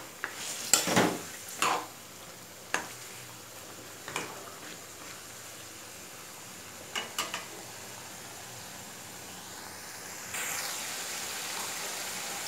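Chicken pieces sizzling in spice paste in a metal karai on a gas burner while they are slow-sautéed (kosha stage). A few scrapes and knocks of a plastic spatula against the pan come in the first few seconds and again around seven seconds in. The sizzle gets louder from about ten seconds in.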